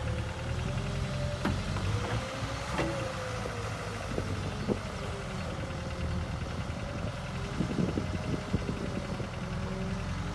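JCB JS220LC tracked excavator's diesel engine running steadily, with a tone that wavers slowly up and down over it and a few short knocks and clanks.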